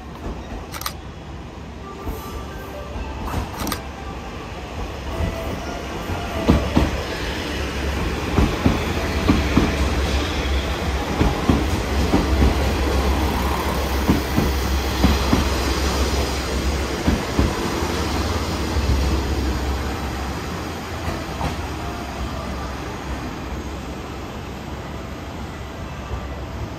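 Red JR West KiHa 47 diesel railcars approaching and running past at low speed, with a low diesel rumble and wheels clacking over rail joints. The sound builds, is loudest in the middle, then fades.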